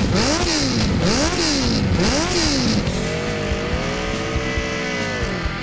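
Sport motorcycle engine revved three times in quick blips, each rising and falling in pitch, then held at higher revs for a couple of seconds before falling away near the end.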